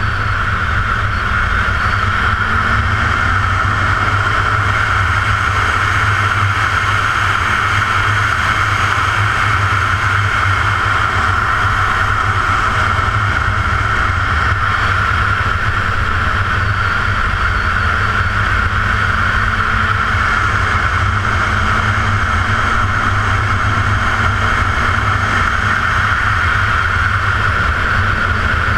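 2014 Yamaha R1's inline-four engine at a steady cruise under heavy, constant wind and road noise, its note faint and rising and falling slightly. The engine is being run in, held below 6,500 rpm.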